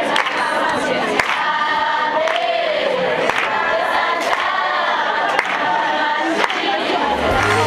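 A group of voices singing together in chorus, with a sharp beat about once a second.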